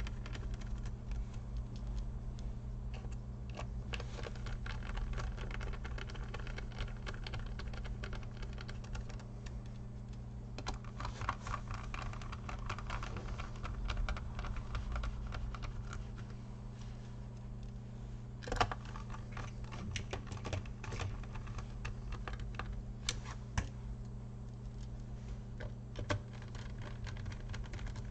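Small screws being driven into a laptop's plastic bottom case with a precision screwdriver: a long run of light clicks and taps of the tool and screws against the plastic, with a few sharper clicks in the second half. A low steady hum runs underneath.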